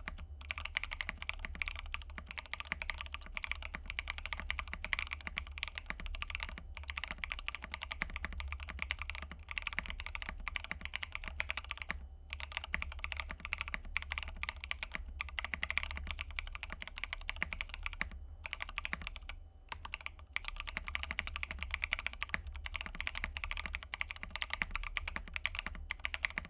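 Mechanical keyboard being typed on quickly and continuously, a steady stream of key clacks with a few brief pauses. The board is an S80 kit with JWK Epsilon switches and XMI Cadet keycaps, top-mount build with plate foam and case foam, no PE foam or tape mod.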